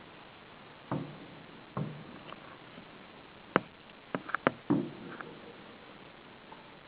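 Fireworks shells bursting: two low booms about a second apart, then a quick cluster of sharp cracks and a further boom around the middle.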